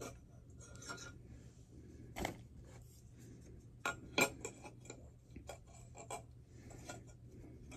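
Scattered light taps and clinks of packaged items being handled, with the sharpest knocks a little past two seconds and about four seconds in.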